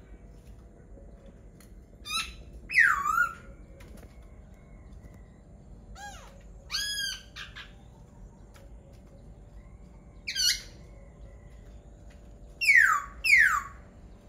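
Laughingthrush singing: loud whistled phrases in bursts a few seconds apart, with notes that slide down in pitch or arch up and over, the last two downward notes coming close together near the end.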